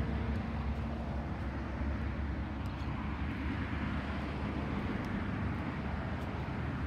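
Steady low outdoor rumble, strongest at the bottom, with a few faint ticks now and then.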